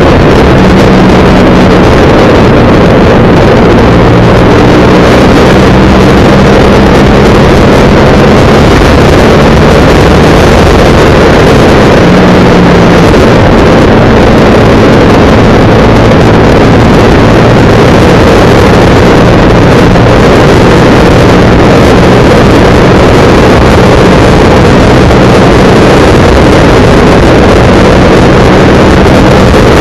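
Motorcycle engine running at cruising speed under heavy wind rush on an onboard microphone. The engine note steps up and down slightly a few times.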